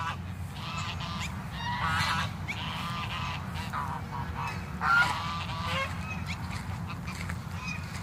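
Flock of domestic geese honking on and off, several short calls overlapping, the loudest about five seconds in.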